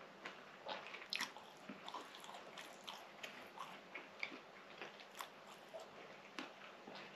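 A person chewing a soft baked fatayer pastry close to the microphone: quiet, irregular wet mouth clicks and smacks.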